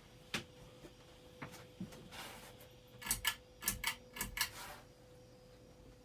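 Hampton Bay ceiling fan running with a faint steady hum as it is switched to medium by its metal pull chain, which clicks and rattles: a few single clicks, then a quick run of about six sharp clicks some three seconds in.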